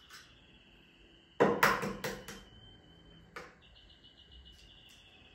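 An egg being knocked against the rim of a glass bowl to crack it: a quick cluster of sharp knocks about a second and a half in, then one more knock a second later. A faint steady high-pitched tone sits underneath.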